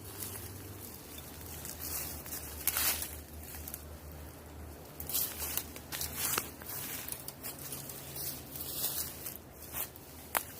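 Irregular rustling and crackling, a burst at a time, over a low steady hum.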